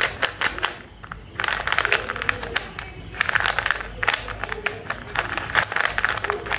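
Stickered 3x3 Rubik's cube being scrambled by hand: rapid plastic clicking and clacking as the layers are turned in quick succession, with a brief pause about a second in.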